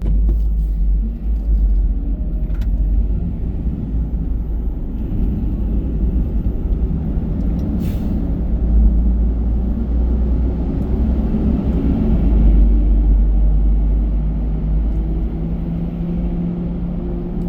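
Car driving on a city road: a steady low rumble of engine and road noise that starts abruptly, with a faint steady hum coming in near the end.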